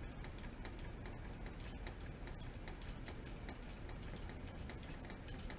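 Quiet handling noise: faint, irregularly spaced light clicks as a cardboard thread card of embroidery floss is turned and held in the fingers, over a low steady hum.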